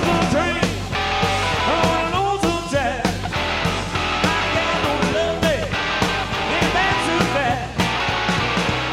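Rock and roll band music with a steady beat and an electric guitar playing a lead line with bent notes.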